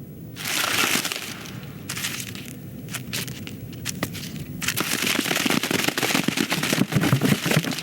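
Film sound effects: dense rustling and crackling full of quick ticks, in two stretches, a shorter one near the start and a longer, louder one from a little past the middle, with scattered clicks between them.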